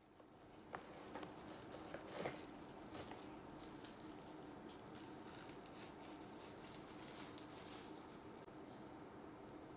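Faint room tone with soft rustling and a few light clicks: a toy poodle shifting on towels in a cardboard whelping box.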